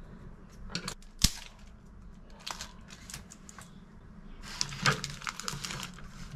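Small sharp clicks and taps of repair tools and small parts being handled while a 2015 MacBook Pro is taken apart. One sharp click comes about a second in, and a quick run of clicks follows near the end.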